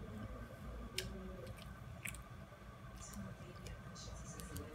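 Crab legs being broken open and eaten by hand: sharp shell cracks and clicks, the clearest about one and two seconds in, with chewing.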